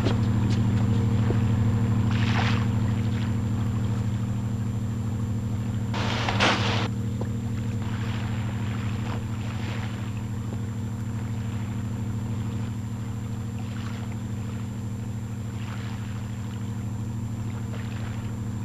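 A fishing trawler's engine running with a steady, even low drone, with a few short noises over it, the loudest about six seconds in.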